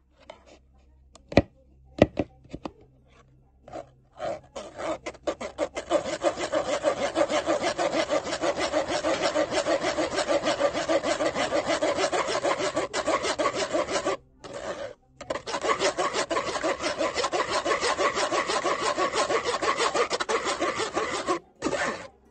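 A spoon scraping quickly back and forth against a fine mesh strainer, pushing purée through the mesh. The rapid rasping rhythm begins a few seconds in after some scattered clicks, pauses briefly about two-thirds of the way through, and stops near the end.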